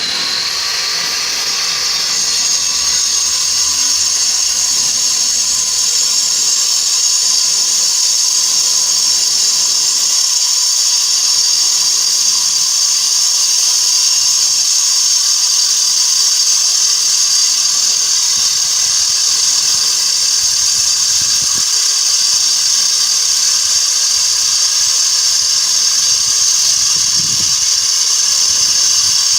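Barovo AA2K30B 9-inch angle grinder, a 2300 W soft-start motor, finishing its gradual spin-up in the first second or two and then running at a steady speed with a loud, high whine.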